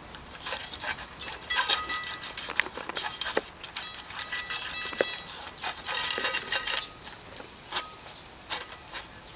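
Shiba puppy nosing and licking in a stainless steel bowl, which clinks, clatters and scrapes over gravel in quick runs, with brief metallic ringing. The clatter thins out after about seven seconds, with a few more clinks near the end.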